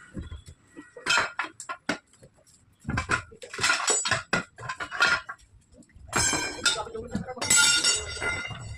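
Tyre-changing tools clinking and knocking against a wheel rim as a 700-15 tyre is worked off by hand: clusters of sharp metallic clinks, busier and ringing in the last few seconds.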